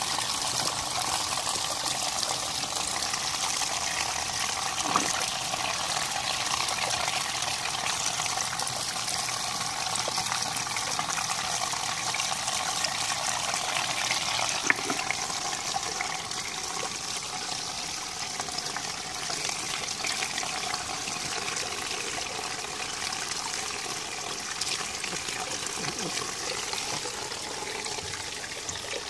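Backyard rock fountain's water splashing and trickling steadily into its pond, with a sharp click about fifteen seconds in.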